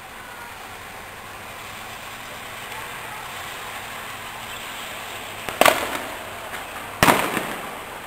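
Two loud, sharp bangs about five and a half and seven seconds in, each echoing away over a steady background hiss.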